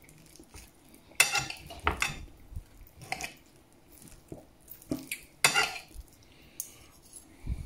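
Knife and fork scraping and clinking against a plate while cutting into a roast partridge: a handful of separate short scrapes, the sharpest about a second in and again about five and a half seconds in.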